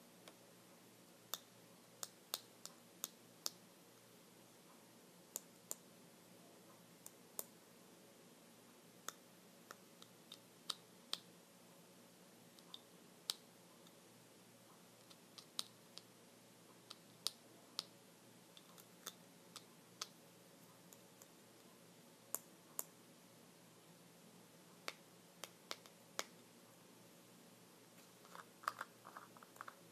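Computer keyboard keys pressed slowly, one at a time: scattered sharp clicks, singly or in twos and threes, a fraction of a second to a couple of seconds apart, with a quicker cluster of clicks near the end.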